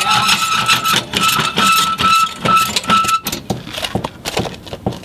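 Scissor stabilizer jack under a travel trailer being run down: a steady high mechanical whine in several short runs over irregular clicking and knocking. The whine stops about three seconds in and the clicking carries on.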